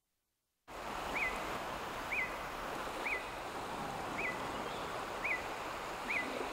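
Outdoor rainforest ambience that comes in after a moment of silence: a steady hiss with a short high chirping call repeated about once a second.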